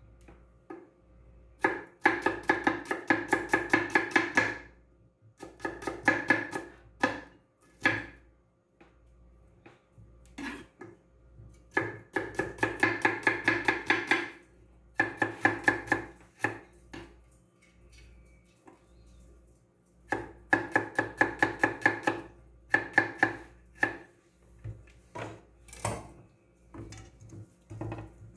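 Kitchen knife chopping red onion on a wooden cutting board: quick runs of sharp strokes, several a second, broken by short pauses.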